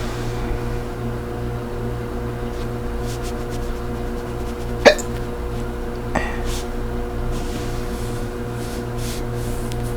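A woman's single sharp, involuntary hiccup about halfway through, part of a natural bout of hiccups brought on by swallowing a drink wrong. A fainter click follows a little over a second later, over a steady low electrical hum.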